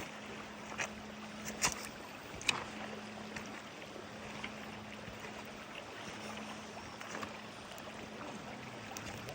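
Steady rush of river water with a faint constant hum under it, and a few sharp knocks in the first few seconds.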